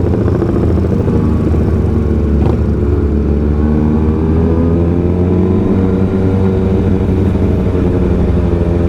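Kawasaki ZX6R's inline-four engine running at low, fairly steady revs as the bike is ridden slowly over a rough road, its pitch lifting a little midway. A brief click sounds about two and a half seconds in.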